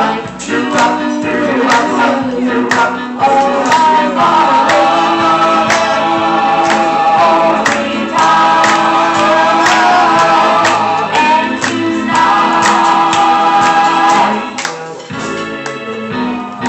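A boy's voice singing a 1950s song into a microphone over accompanying music with a steady beat.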